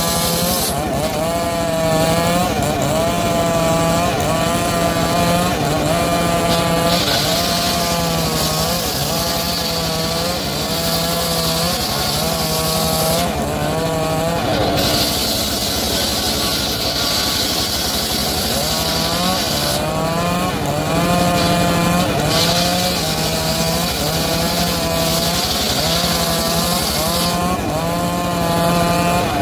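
Engine-powered wood saw running and cutting timber, its engine pitch wavering up and down about once a second under the changing load. The high hiss drops away briefly a few times.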